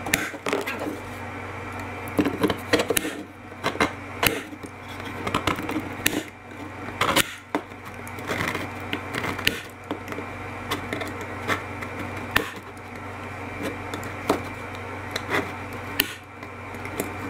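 Knife blade scraping and prying around a siliconed-in solar panel in the plastic cap of a solar post light: irregular clicks, scrapes and knocks, over a steady low hum.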